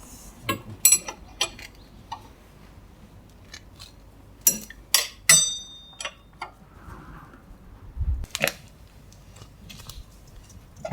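Hand tools and metal parts clinking and knocking, with a few sharp clinks, one ringing briefly, and a dull thud about eight seconds in, as suspension fasteners are worked on in a hunt for a suspension noise.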